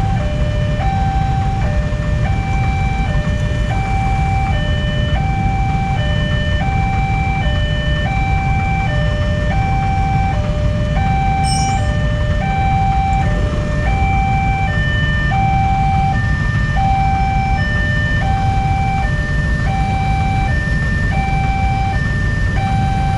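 Railway level-crossing warning alarm sounding its steady two-tone chime, a higher and a lower tone taking turns about once every second and a half, over the low running of many motorcycle engines idling at the closed barrier.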